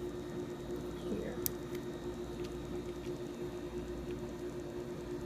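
A steady low hum of several tones, with a sharp click about a second and a half in and a few faint ticks after it.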